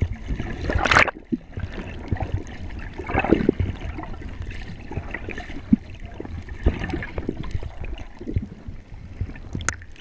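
Muffled water sloshing and gurgling heard through a GoPro's underwater housing as a snorkeler swims, coming in uneven surges. The loudest rush comes about a second in, and another about three seconds in.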